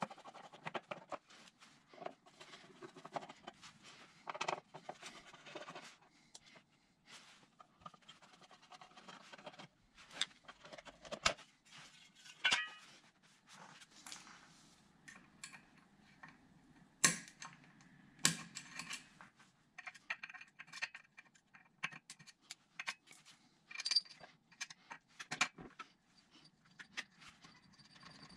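Irregular metallic clinks, taps and scrapes of hand work on a Vespa PX125 scooter engine: a screwdriver on screws and metal covers, and tools picked up from and set down on a tiled floor. A few sharper clanks stand out in the second half.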